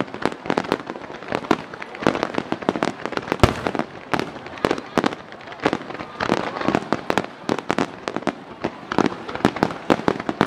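Aerial fireworks shells bursting in a rapid, continuous barrage: many sharp bangs several a second, overlapping, with the loudest bang about a third of the way in.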